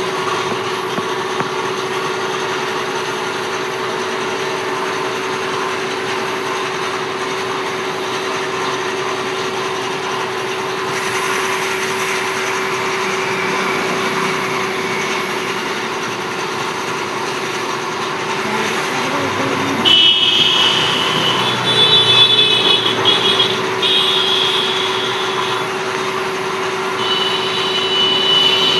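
Steady machine hum with one constant low tone. From about two thirds of the way through, intermittent high squealing tones come and go over it several times.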